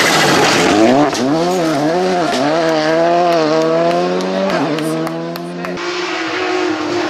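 Rally car on loose gravel: tyres scrabbling and gravel spraying at first, then the engine revving up and down several times through quick gear changes before holding a steady note. A lower, steadier engine note takes over near the end.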